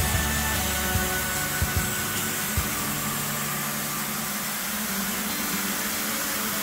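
Dry vapor steam cleaner's mop head jetting steam in a steady hiss, with background music underneath whose low notes fade out about four seconds in.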